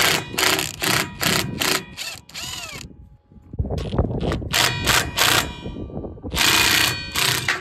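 Cordless impact driver hammering in repeated short bursts as it backs out the Allen bolts that hold a wheel line's hydraulic drive motor. There is a pause about three seconds in, then more bursts, the longest near the end.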